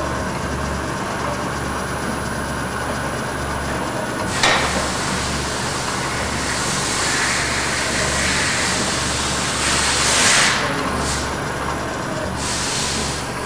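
ACRA 3-axis CNC vertical bed mill running a programmed cycle with its axes moving: steady machine noise with a low hum that cuts in and out about once a second. A brief hiss comes about four and a half seconds in, and a longer, louder hiss comes around ten seconds.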